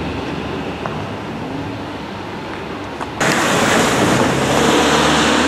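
Rigi cogwheel train passing close by at the level crossing: a sudden loud rush of noise sets in about three seconds in as the car reaches the microphone and goes on to the end.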